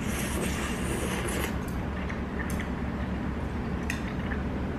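A person slurping udon noodles for about the first second and a half, then a few short faint clicks, all over a steady low hum.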